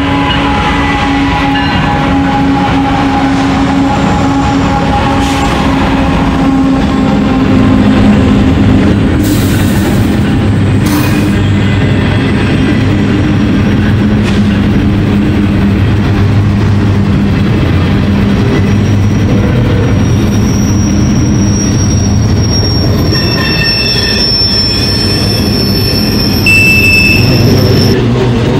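Diesel freight train running steadily, with a drone of the locomotives and a long high-pitched wheel squeal in the second half.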